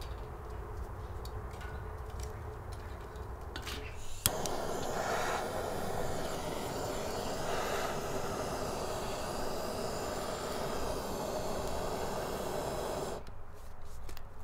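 Sticks being laid on a fire grate with light knocks, then a handheld gas canister torch is lit with a click about four seconds in. Its flame hisses steadily for about nine seconds against the kindling, then cuts off suddenly near the end.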